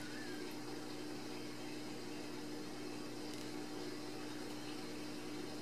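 Steady room hum with a constant low tone, like a running appliance or fan. Level and character do not change throughout.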